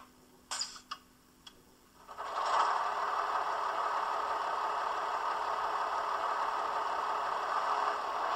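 A few clicks, then about two seconds in the sound decoder of a Roco H0 model of a DB class 628.4 diesel railcar starts its recorded diesel engine sound, which settles into a steady idle. It plays thin through the model's small loudspeaker, with its energy in the mid range.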